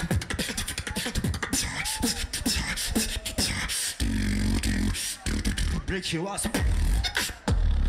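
Battle beatboxing by a single beatboxer: quick snare and click sounds over deep hummed bass notes, with short pitched vocal slides.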